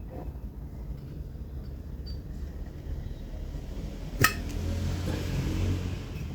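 A single sharp metallic click from a vintage Zippo lighter's case about four seconds in, followed by a low rumble that swells and fades.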